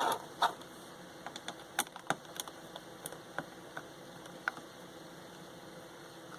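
Light plastic clicks and taps from a headset's casing being worked open with a pry tool. A few sharper clicks come at the very start, then scattered small ones thin out after about four seconds, over a faint steady hiss.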